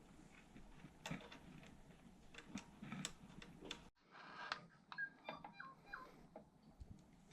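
Faint handling noises: scattered light clicks, then a few small metallic clinks of brake fittings being worked by hand, with a brief drop-out about four seconds in.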